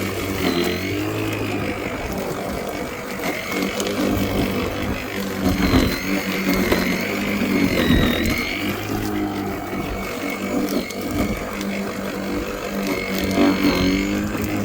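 Worx 40 V cordless lawnmower's electric motor running with a steady whine. Its pitch dips briefly several times.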